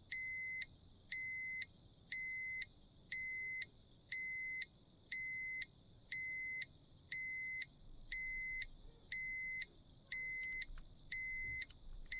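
Electronic radiation dosimeter alarm. A steady high-pitched tone runs under an electronic beep that sounds about once a second, each beep lasting about half a second, in an even, unbroken rhythm.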